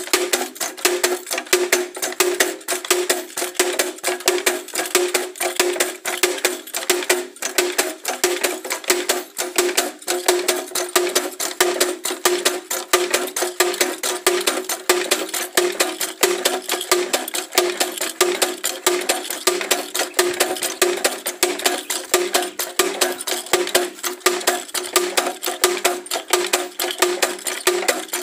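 Background music with a quick, steady rhythm.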